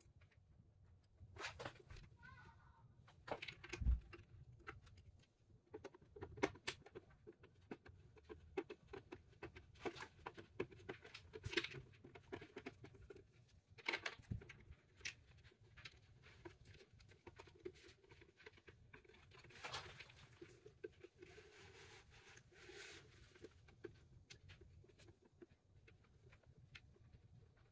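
Scattered small clicks, taps and light rattles of hands working on a plastic car navigation-screen unit with a screwdriver and small screws, with one louder knock about four seconds in.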